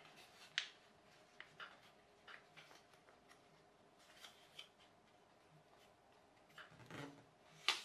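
A sheet of plain paper being folded and creased by hand: faint, scattered crackles and rustles, with sharper snaps about half a second in and near the end.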